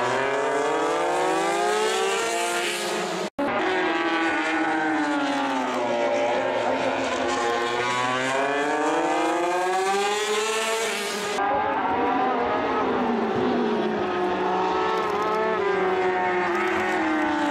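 Two Honda MotoGP racing motorcycles at speed, their engines revving up and down through the corners, the pitch rising and falling again and again. The sound cuts out for an instant about three seconds in.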